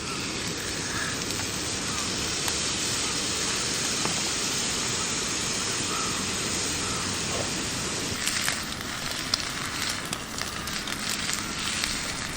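A large block of beef searing on a hot iron griddle plate over a campfire, giving a steady sizzle. Sharp pops and crackles join in from about eight seconds in.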